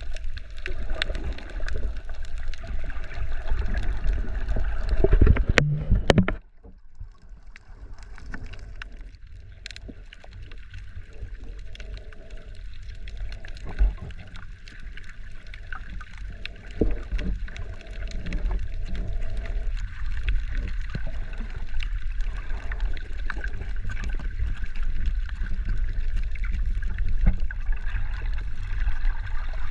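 Sea water sloshing and gurgling around the camera. A few loud knocks come just before six seconds in, then the sound drops suddenly to a quieter, muffled stretch and builds back up later.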